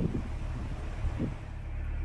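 Narrowboat's diesel engine running steadily under way, a low rumble, with wind buffeting the microphone at the start and again just over a second in.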